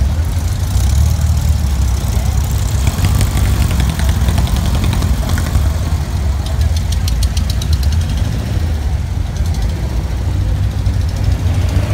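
Air-cooled Volkswagen flat-four engines of a column of Beetles and VW-based buggies running at low, near-idle speed in slow traffic: a steady, loud, low rumble.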